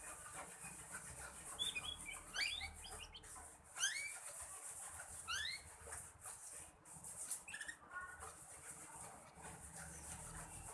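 Young black-red canary twittering in short rising chirps, a few scattered bursts at a time: a juvenile still learning its song.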